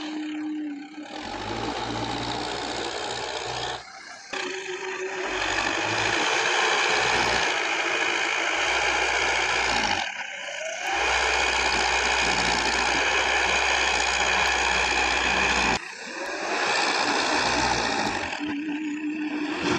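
Diesel engine of heavy earth-moving machinery running hard under load. The sound briefly drops and changes abruptly about four, ten and sixteen seconds in.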